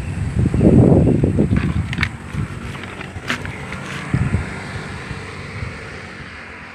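Wind buffeting a phone's microphone, with a few handling clicks. It is gustiest about a second in, then settles into a steadier rush that slowly eases off.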